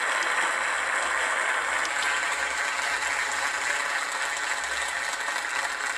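A steady, even hiss with no music or speech in it.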